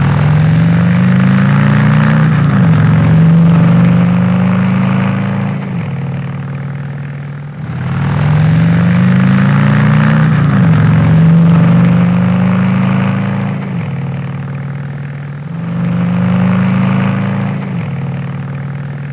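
Harley-Davidson V-twin motorcycle engine accelerating: its pitch climbs, drops sharply at a gear change, holds, then eases off. The same run repeats three times.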